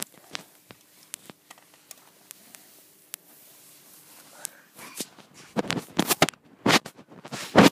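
Camera handling noise: scattered small clicks and rustles, then a run of loud bumps and scrapes in the last two seconds.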